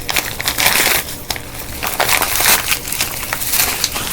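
Packaging being handled and opened, with loud, irregular crinkling and crackling.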